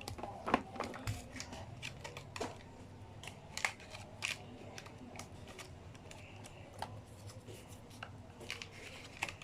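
Scattered light clicks and taps from handling plastic toys and their packaging, irregular and a few to the second, over a faint room hum.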